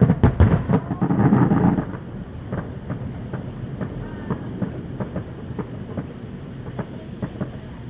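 Fireworks going off: a dense run of bangs and crackles for about the first two seconds, then thinning to scattered pops over a low rumble.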